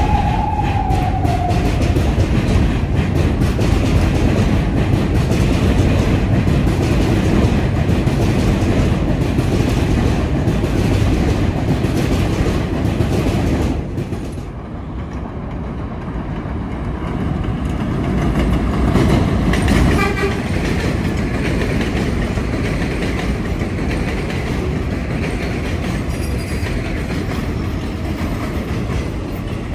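New York City Subway Flushing Line (7) train of R188 cars running through an elevated station, a loud, steady rumble of wheels on rail. A short falling tone sounds at the start. The noise dips briefly about halfway through, then builds again as train sound returns.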